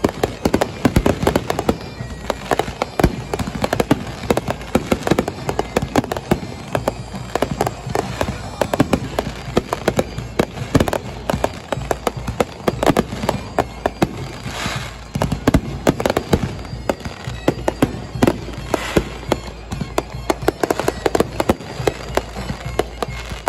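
Fireworks display: a dense, continuous barrage of bangs and crackling from bursting aerial shells.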